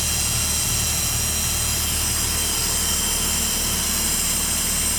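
The Cummins 5.9-litre inline-six diesel of a 1989 Blue Bird bus idling steadily after a cold start, heard from the driver's area of the cab. A low engine note runs with a steady high hiss above it.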